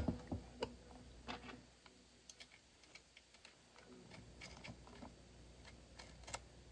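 Irregular light clicks and taps of chainsaw parts being fitted together by hand, as the guide bar and its fixing nuts are put on and hand-tightened.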